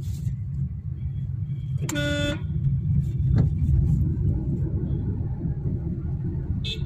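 Steady low road and engine rumble heard from inside a moving car in city traffic, with a single short vehicle horn honk about two seconds in.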